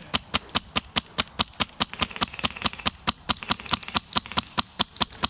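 Wolverine MTW HPA airsoft rifle firing full-auto: a steady stream of sharp shots at about eight a second.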